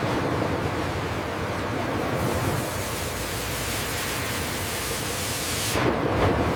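A steady rushing hiss over a low rumble, turning brighter and hissier from about two seconds in until shortly before the end.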